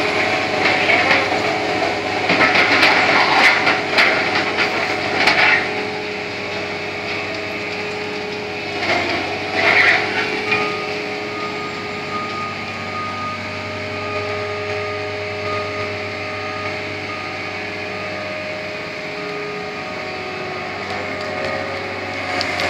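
Liebherr LB 36 bored-pile drilling rig's diesel engine running steadily, with high steady whining tones over the drone. Clanking and rattling come in stretches in the first few seconds and again about ten seconds in, as the rig handles its raised drill bucket.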